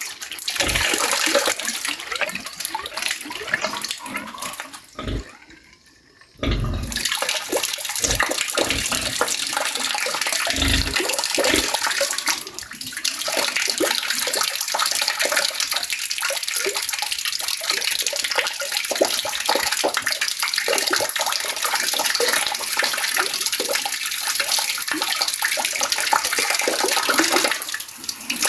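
Water falling and splashing steadily, like a leak pouring down. It dips quieter for about a second around six seconds in, with a few low thuds in the first half.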